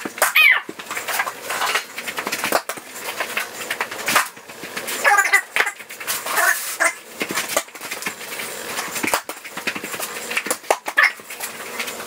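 Knocks and clatter of a small basketball hitting a mini wall-mounted hoop, its backboard and the surrounding wall and floor during repeated shots, with several short high, wavering calls heard a few times.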